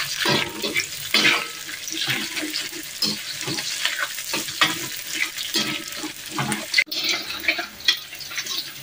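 Anchovies, shallots and green chilli sizzling in hot oil in a wok, with a slotted spatula scraping and stirring against the wok in quick, repeated strokes.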